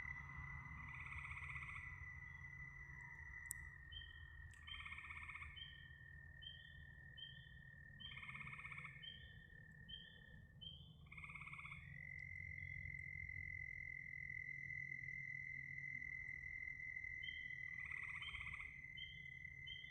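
Frogs calling: short notes repeating about twice a second and a louder call every few seconds, over a steady high-pitched trill and a low hum.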